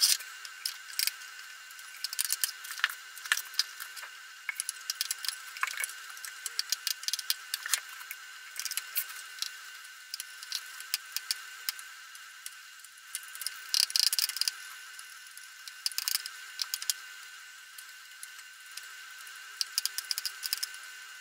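Cleaning dirt and breakdown residue off a welding inverter's circuit board: irregular scratching, clicking and rattling over a steady high-pitched whine, busiest around three seconds in and again at about fourteen and sixteen seconds.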